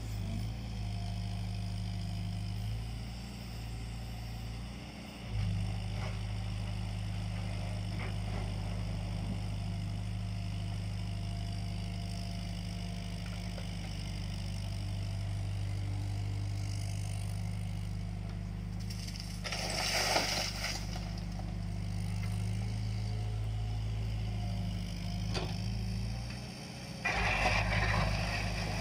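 JCB 8050 mini excavator's diesel engine running steadily as it works, with two short bursts of the bucket scraping through soil, about two-thirds of the way in and again near the end.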